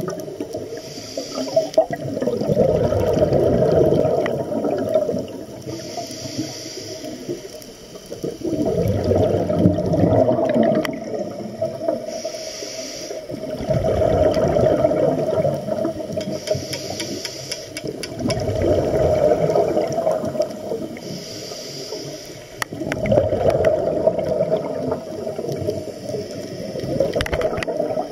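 Scuba diver breathing through a regulator underwater: a short hiss of each inhalation, then a longer rush of exhaled bubbles, about six breaths at a steady pace of one every four to five seconds.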